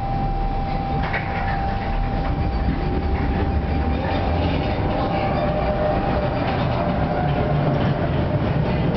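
Tatra T5C5 tram heard from inside the passenger saloon: a steady electrical whine over the low rumble of the running gear, then from about three seconds in the traction motors' whine rising in pitch as the tram gathers speed.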